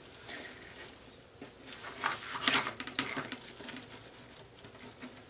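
Soft rustling of poly deco mesh being gathered and handled by hand on the wreath frame, a few short rustles mostly around the middle.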